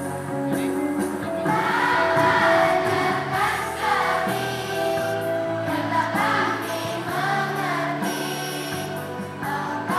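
A group of children singing together in unison over a steady instrumental accompaniment; the voices come in about a second and a half in.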